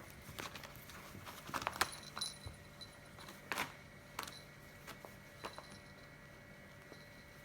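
Kittens moving about and playing: scattered light taps and clicks with brief high jingling, loudest about two seconds in.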